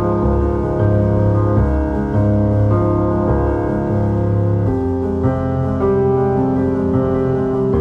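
Background music: a slow, gentle piano piece over sustained low bass notes.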